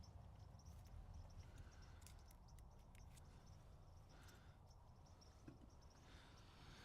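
Near silence: faint background hiss with a few faint, scattered clicks.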